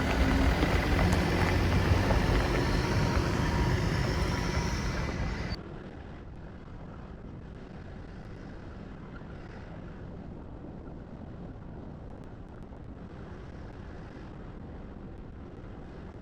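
Loud rushing noise for about five seconds, then an abrupt cut to the steady, quieter road noise of a car driving.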